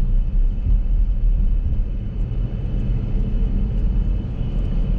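Steady low rumble of the 2021 Dodge Durango R/T's 5.7-litre HEMI V8 with road noise, heard from inside the cabin while cruising.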